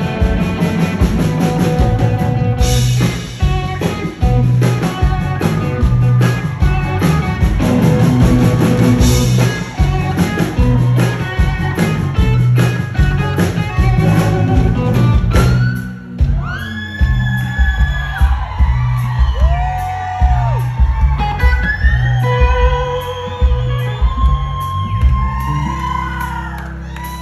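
Live rock band playing loudly, with electric guitar, bass and drums. About sixteen seconds in the sound changes abruptly to a lead electric guitar bending notes over a steady bass.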